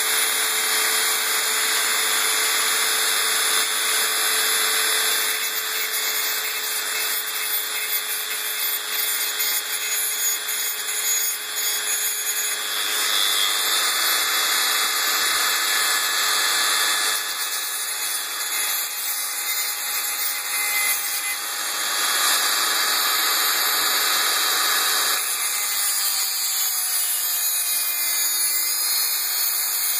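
Small rotary engraver spinning a thin cutting disc through the metal housing of a tablet's charging socket, a continuous high grinding whine whose level shifts a little as the disc bites. It is cutting the socket's shell off so that the plastic part with the contacts can be desoldered separately.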